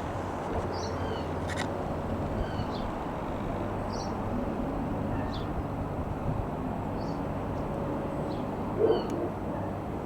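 Small birds chirping in short high calls every second or so over a steady low engine drone. A louder low hooting call comes about nine seconds in.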